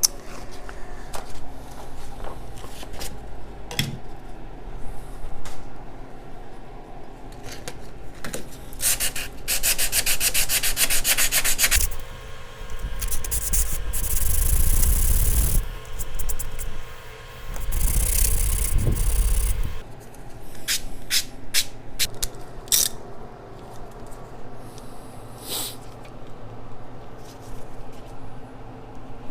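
Razor blade scraping old gasket material off a metal flange in repeated hand strokes, with a stretch of quick short strokes and two louder, longer passes near the middle.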